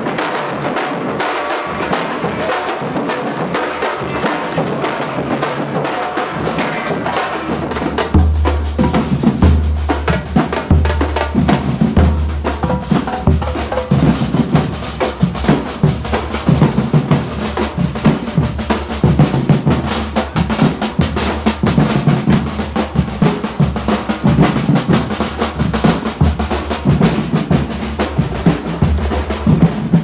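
Bahian street drum band playing. At first there is a busy mix of drums. From about eight seconds in, a group of large bass drums beaten with mallets keeps a steady, loud rhythm under sharper, higher drum hits.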